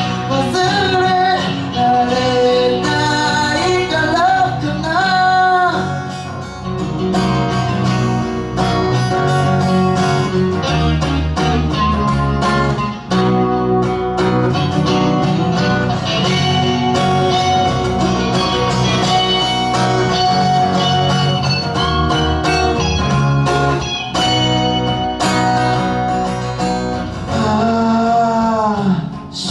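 Live acoustic band music: strummed acoustic guitar with electric guitar and electric bass, and a man singing near the start and again near the end.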